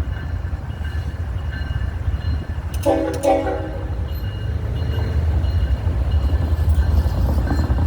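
Train passing with a steady low rumble. About three seconds in, the locomotive's air horn sounds two short blasts.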